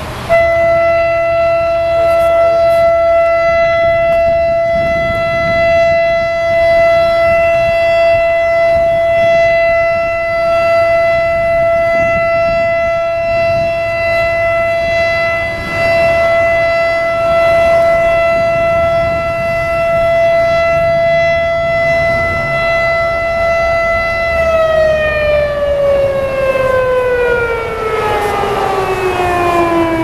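American Signal Alertronic AL-8000 electronic outdoor warning siren sounding its steady Alert tone for a tornado warning. The tone comes on suddenly and holds one loud, unchanging pitch for about 24 seconds, then glides steadily down in pitch near the end.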